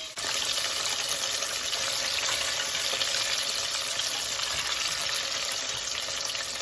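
Flour-coated chicken wings deep-frying in hot grease: a steady, dense sizzle and crackle of popping oil that comes in suddenly right at the start.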